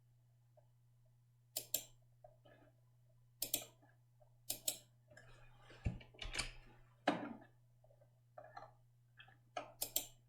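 Faint computer mouse clicks, several in quick pairs, with a short patch of softer key or handling clatter midway, over a steady low electrical hum.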